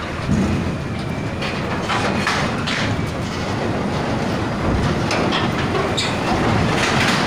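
Hino diesel truck driving off a ferry's bow ramp, its engine running under a steady rumble, with repeated metal clanks and rattles as its wheels roll over the steel ramp plates.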